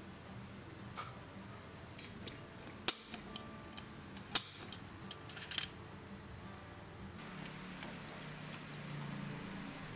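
Sharp metallic clicks of a center punch marking a metal square: a loud click about three seconds in, another about a second and a half later, then a quick cluster of lighter taps. A steady low hum runs underneath.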